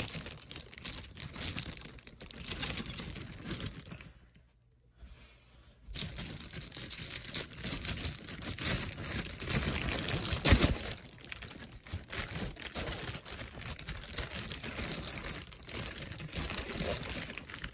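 Plastic poly mailer bag being crumpled and torn open by hand: continuous crinkling and rustling plastic. It pauses briefly about four seconds in, and there is one louder crackle a little past halfway.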